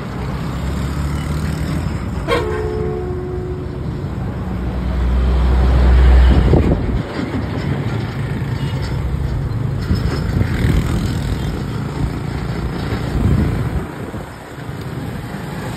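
Road traffic crossing a bridge, engines and tyres rumbling, with a brief horn toot about two seconds in. A heavy vehicle passes closest around five to six seconds in, the loudest low rumble of the stretch.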